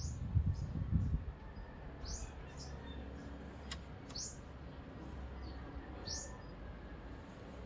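A small bird chirping: short, high chirps a second or so apart. A low rumble on the microphone in the first second or so.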